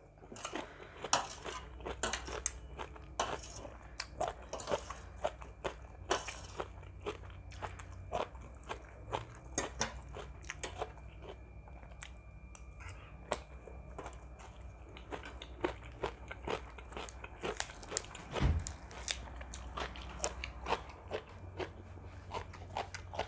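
A person chewing and crunching food close to the microphone, with many short, crisp crunches following one another irregularly.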